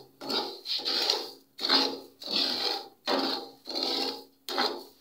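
Wooden spatula scraping dry granulated sugar across a coated frying pan: a gritty rasp with each stroke, about seven strokes in a steady rhythm. The sugar is still granular and only beginning to melt over low heat.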